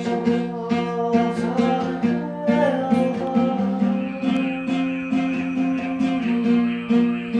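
Altai throat singing: a sustained low drone with a higher melody line moving above it, over an acoustic guitar strummed in a steady rhythm.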